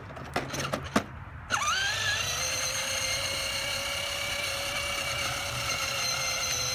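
Small electric motor of a battery-powered kiddy ride-on quad whining steadily as the toy drives along, starting about a second and a half in with a rising pitch after a few clicks.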